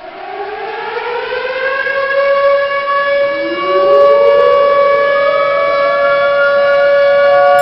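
Civil defense siren winding up from silence: its pitch rises and levels off into a steady wail, growing louder over the first few seconds. A second rising siren tone joins about three seconds in.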